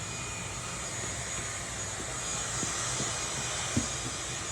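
Vacuum cleaner running steadily, with a few light knocks as the nozzle bumps against things.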